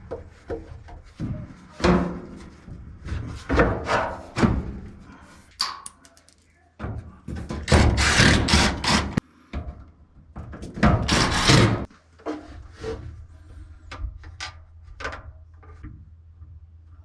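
Knocks, thuds and clatter of appliance parts and panels being handled during a repair, with two louder, longer rustling-scraping stretches about 7 and 11 seconds in, then a low steady hum under lighter taps.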